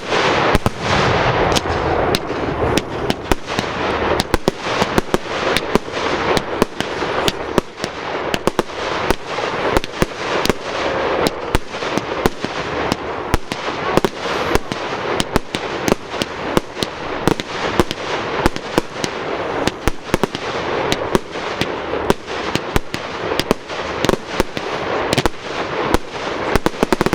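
Fireworks display: a continuous barrage of sharp bangs, several every second, over constant crackling.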